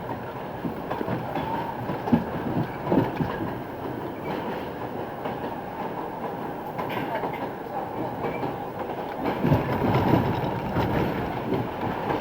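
New York City subway R62A car running on the rails, a steady rumble with the wheels clacking over rail joints; the clatter is heavier about two to three seconds in and again after about nine seconds.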